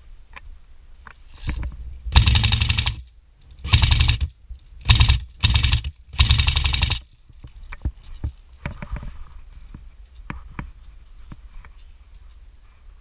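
Airsoft gun firing on full auto in five short bursts, each under a second, in quick succession, with a few small knocks and clicks between and after.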